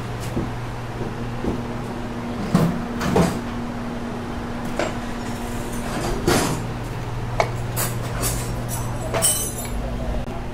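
Steady low hum with about five sharp knocks and clanks of metal scrap parts scattered through it.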